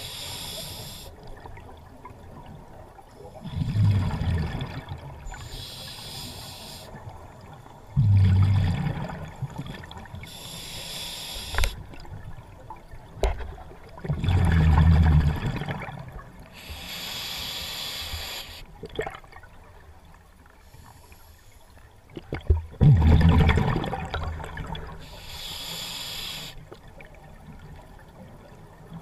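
Scuba diver breathing through a regulator underwater, four breaths in all: each a loud, low, bubbling rush of exhaled air followed a second or two later by a high hiss of inhaling through the regulator, repeating roughly every five to seven seconds.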